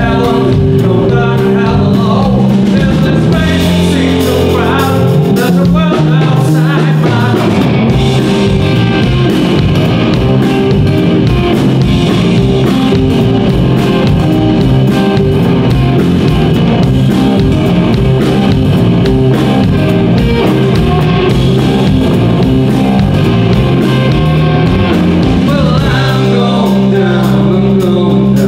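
Live blues-rock band playing: electric guitars and drum kit, with a man singing in the first few seconds and again near the end, and an instrumental stretch between.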